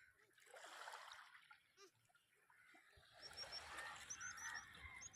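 Faint trickling and sloshing of seawater, swelling in the second half, with a run of short high chirps near the end.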